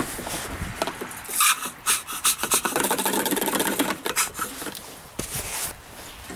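Plastic rubbing, scraping and clicking as a yellow spout is worked in the filler of a white plastic tank, with irregular knocks from handling.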